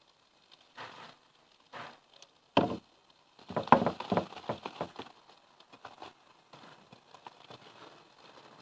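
Homemade shaving-foam slime being worked by hand in a bowl, squelching and popping: a few separate wet squishes, then a quick run of short pops and clicks in the middle that thins to faint crackle.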